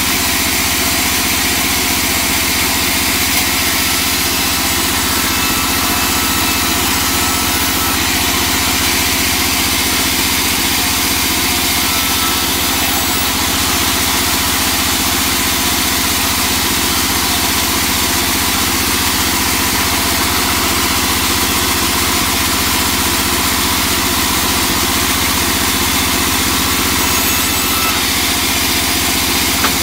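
Large band saw running steadily as teak boards are fed through its blade and ripped lengthwise.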